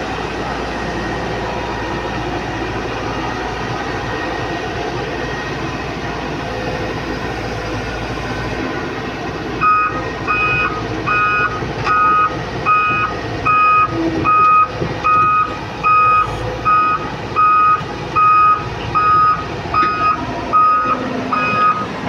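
A heavy diesel machine's engine running steadily. About halfway through, a backup alarm starts beeping in an even rhythm, about one and a half beeps a second, over the engine.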